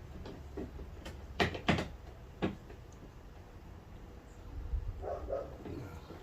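Clicks and knocks of plastic and metal parts inside a car door as a replacement door handle and its rod clip are worked into place: three sharp knocks a little over a second in, under a second apart, then a brief muffled sound about five seconds in.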